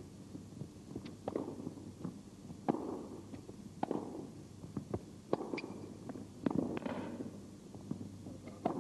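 Tennis rally: a ball struck back and forth by rackets, one sharp echoing hit about every second and a quarter, about seven in all.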